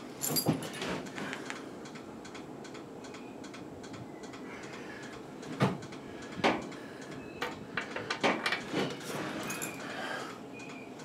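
Hand tools knocking and clinking against metal during repair work on an old tiller: a few knocks at the start, two sharper ones about halfway, then a quick run of clinks.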